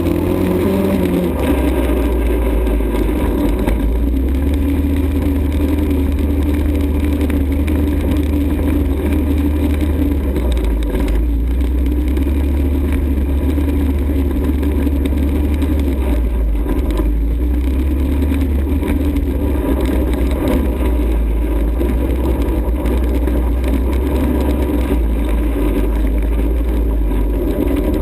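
ATV engine running steadily while riding, with a brief shift in engine pitch right at the start and a constant heavy low rumble underneath.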